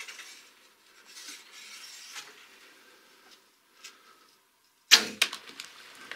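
Compound bow shot about five seconds in: one sharp, loud crack of the string's release, followed by several quick, smaller clicks and rattles. Faint rustling comes before it.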